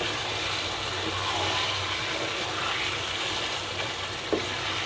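Raw beef pieces sizzling in hot spiced oil and masala in a pot as they are stirred in, a steady wet sizzle over a low hum, with a light knock about four seconds in.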